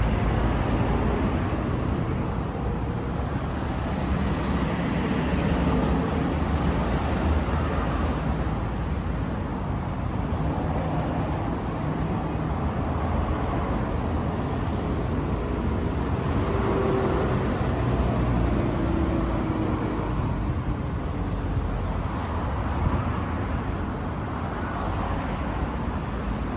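Kawasaki Z900RS's inline-four engine idling steadily through a Yoshimura hand-bent one-piece exhaust.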